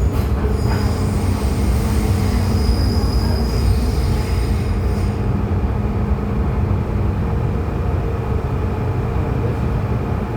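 MTR M-Train metro train running with a steady rumble, with a high squeal from the running gear for the first half that stops about five seconds in.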